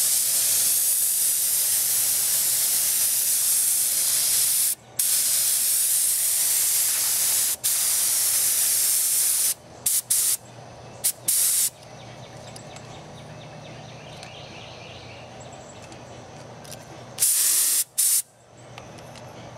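Compressed-air paint spray gun spraying in long hissing passes, with brief releases of the trigger about five and seven and a half seconds in. Several short bursts follow around ten to twelve seconds, then one more near the end.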